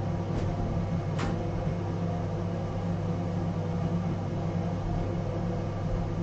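Bathroom ventilation fan running with a steady hum in a small enclosed unit bath. A faint brief tick comes about a second in.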